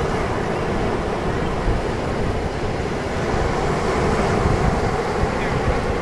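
Sea waves breaking and washing up the sand in a steady rush, over a heavy rumble of wind on the microphone.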